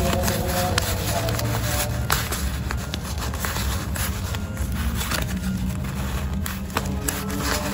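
Paper banknotes rustling and crackling as they are flipped through and counted by hand, over a steady low rumble.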